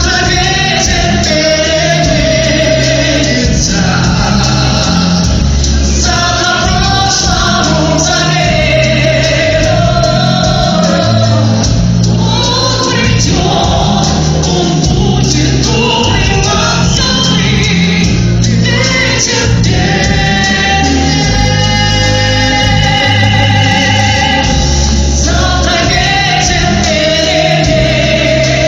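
A song sung over a musical accompaniment, with held, wavering sung notes over a bass line that changes every second or two.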